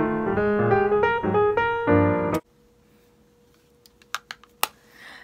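Background piano music that cuts off suddenly about two seconds in, followed by a quiet room with a faint steady hum and a few sharp clicks.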